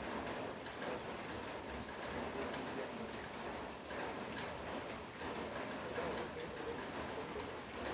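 Steady rain: an even hiss with scattered small ticks of falling drops.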